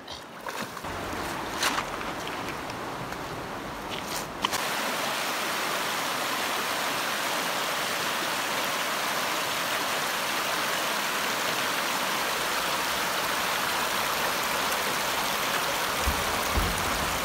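Shallow river water rushing steadily over stones, getting louder about four and a half seconds in and holding steady from there. A few faint clicks in the first few seconds.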